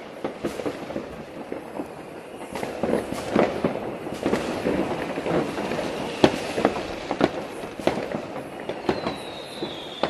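Many distant fireworks and firecrackers going off all over a town: a dense, irregular stream of bangs and crackles, joined near the end by a high whistling firework.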